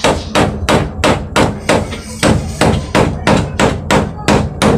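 A hand-held stone used in place of a hammer, knocking a nail into a plywood panel with rapid, evenly spaced blows, about three a second.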